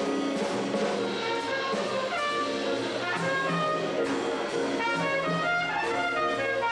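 Trumpet playing a jazz melody live, a line of moving notes, over a small band's accompaniment with a low bass line.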